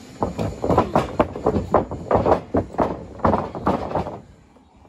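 A quick run of irregular thuds and slaps, bodies and feet hitting the ring mat during a wrestling exchange, about three or four a second, stopping about four seconds in.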